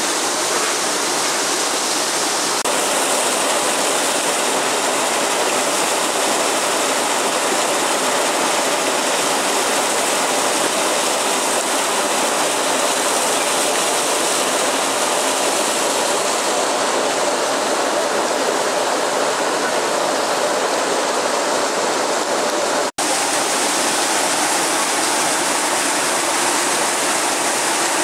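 Hot spring water from the Yubatake pouring off its wooden chutes into the pool below in a loud, steady rush. The sound cuts out for an instant about 23 seconds in.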